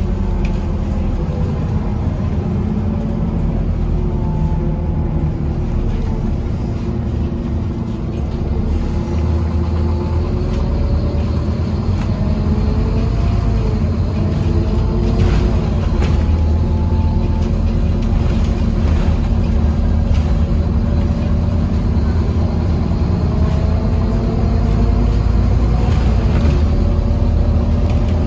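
Scania N230UD double-decker bus under way, heard from inside the passenger saloon: a steady low diesel engine drone with a driveline whine whose pitch glides up and down with road speed. The drive grows louder from about eight seconds in as the bus pulls harder.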